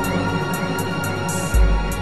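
Background electronic music with sustained tones and a deep bass hit about every two seconds, one about one and a half seconds in.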